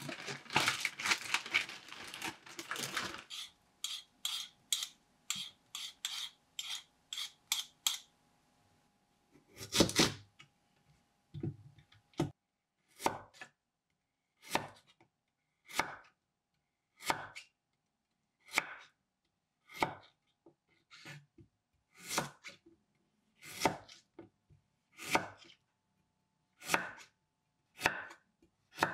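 A plastic bag crinkling for the first three seconds or so. Then a large kitchen knife cutting Korean radish into half-moon slices on a wooden cutting board: a heavy thud about ten seconds in, then single crisp chops about every second and a half.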